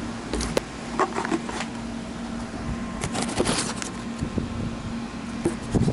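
Handling noise: scattered light knocks and scrapes as a hand and a small camera move against a balsa-sheeted model airplane, busiest about three seconds in, over a steady low hum.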